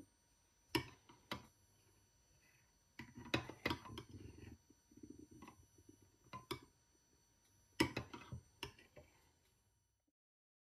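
Metal spoon clinking against a ceramic soup bowl while stirring thick soup: sharp clicks in small groups, with soft stirring noise between them.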